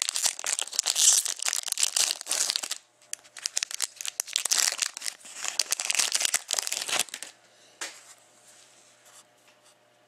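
Foil wrapper of an Upper Deck SP Game Used hockey card pack being torn open and crinkled by hand: two stretches of crinkling with a short pause about three seconds in, then quiet for the last few seconds as the cards are handled.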